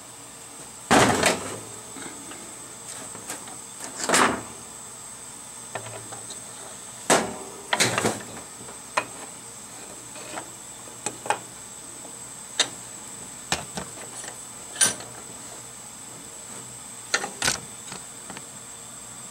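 Irregular metal clunks and knocks from handling the aluminium Hydro-Gear pump housing and setting it in a bench vise, the loudest about a second in.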